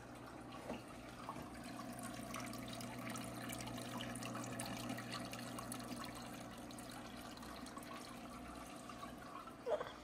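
Water trickling and dripping down the moss-covered rock of a small terrarium waterfall into its pool, a continuous patter of fine drips over a low steady hum, with one brief louder sound near the end.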